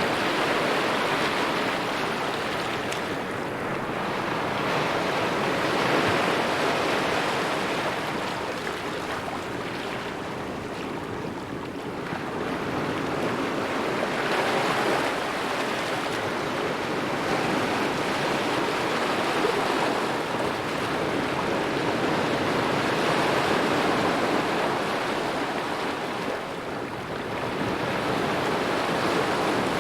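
Small waves lapping on a shore, a steady wash of water that swells and eases every few seconds.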